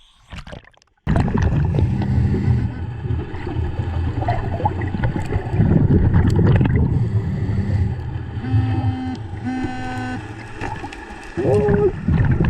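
Underwater sound of a scuba dive: a loud, steady low rumble and bubbling from the diver's breathing gear, starting suddenly about a second in. Two short, even humming tones come about two-thirds of the way through.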